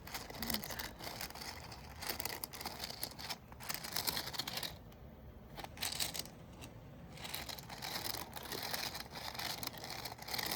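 Plastic wrapper crinkling and rustling in irregular bursts as a squishy toy is handled, easing off briefly around the middle.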